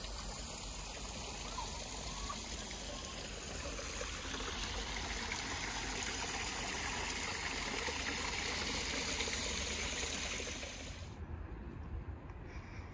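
Water running steadily, an even rush that grows louder about four seconds in and cuts off abruptly near the end, leaving only a low rumble.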